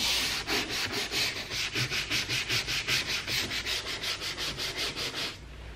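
A hand-held detailing brush scrubbed rapidly back and forth over a leather car door panel, working in leather cleaner. It makes a rhythmic bristly rasp at about four or five strokes a second that stops near the end.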